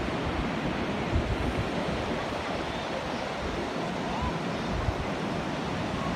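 Ocean surf breaking and washing onto a sandy beach in a steady rush, with wind buffeting the microphone.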